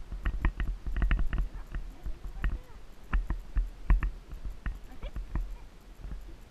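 Icelandic horse's hooves striking a dry dirt trail, irregular thuds a few times a second, with a low wind rumble on the microphone.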